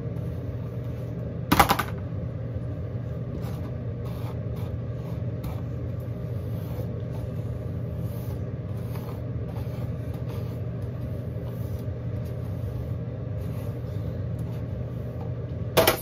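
Hairbrush bristles pulling through long hair in faint repeated strokes over a steady low hum, with two loud knocks, one about a second and a half in and one near the end.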